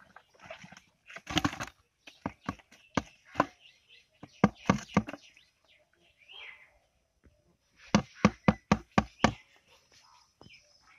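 Sharp knocks and slaps in short clusters as fish are shaken out of a plastic pipe into a plastic bucket and thrash against its walls. A quick run of about seven knocks comes about eight seconds in.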